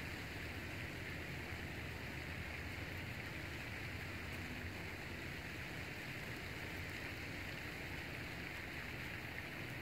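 Steady, even outdoor background hiss with no distinct knocks or clicks.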